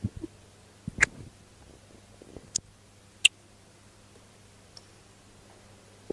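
A few short, sharp clicks and knocks, scattered and irregular, the loudest about a second in and just after three seconds, over a faint steady low hum.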